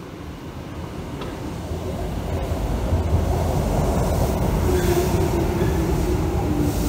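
Electric train running on the rails as it approaches, its rumble growing steadily louder over the first three seconds and then holding loud.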